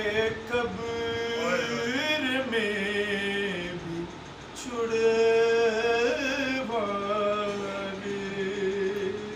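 A man singing an Urdu naat, a devotional hymn, solo and unaccompanied. He draws out long, wavering notes in two phrases, with a short break for breath about four and a half seconds in.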